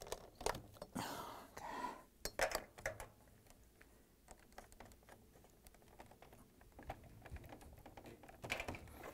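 Scattered light plastic clicks and rustling as a wire harness is pulled free of the plastic clips on a washer's control panel, busiest in the first few seconds and again near the end, with a quieter stretch between.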